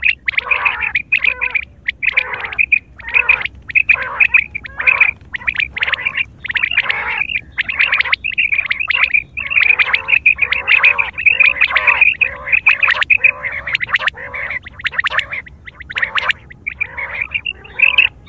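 Common quail calling over and over in quick runs of short whistled notes.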